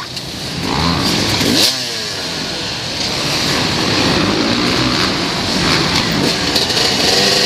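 Dirt bike engine heard from a camera on the rider, running hard with the revs rising and falling; it revs up sharply about two seconds in.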